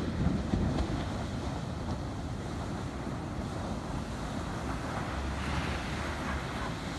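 Ocean surf: waves breaking and washing up the shore, with a heavier crash just after the start, and wind buffeting the microphone.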